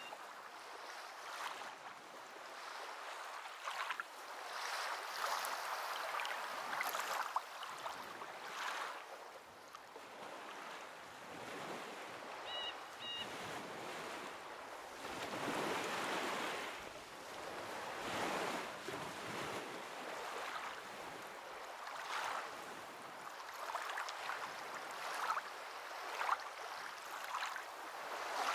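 Water washing and lapping in irregular swells that rise and fall every few seconds, like small waves.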